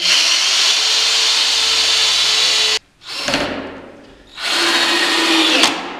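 Handheld power drill working into the bed frame's wood in three bursts. The first is a steady run of nearly three seconds that cuts off sharply, then two shorter runs each wind down as the trigger is let go.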